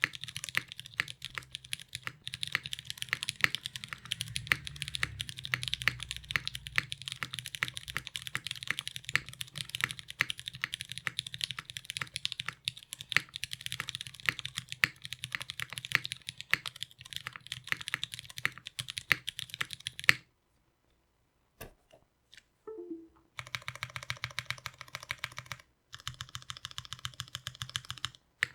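Continuous fast typing on a custom 65% mechanical keyboard with lubed Cherry MX Brown Hyperglide tactile switches, an aluminum plate and GMK keycaps: a dense stream of key clacks. It stops about 20 seconds in, and after three seconds of near silence with a couple of single key presses the typing resumes.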